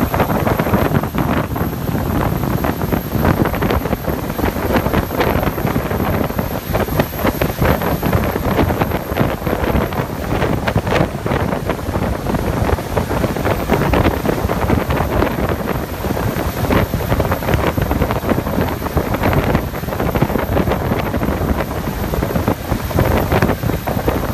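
Sea Ray 650 Fly motor yacht running fast on plane: steady engine and water rush, with wind buffeting the microphone throughout.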